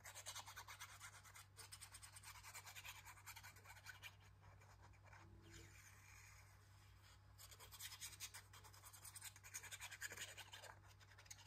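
Faint scratching and rubbing of a glue bottle's applicator tip drawn along a paper strip as glue is spread, in two spells, one at the start and one from about eight seconds in.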